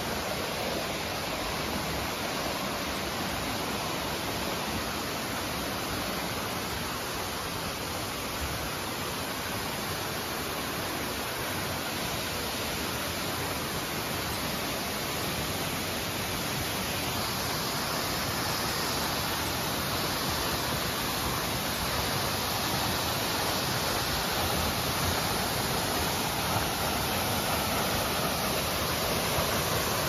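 A waterfall and the rocky stream below it rushing steadily, growing somewhat louder in the second half.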